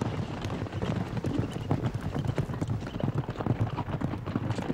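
Hoofbeats of a band of wild mustangs galloping together: a dense, irregular, continuous run of hooves striking the ground.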